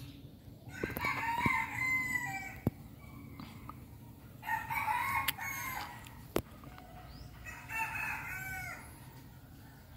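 Rooster crowing three times, each crow lasting one to two seconds, with a couple of sharp clicks between the crows.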